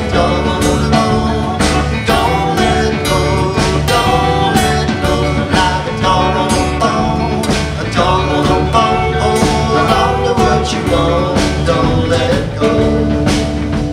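A live band playing a song: strummed acoustic guitar, electric guitar and a steady drum beat, with a man singing over it. Near the end the band settles onto a long held chord.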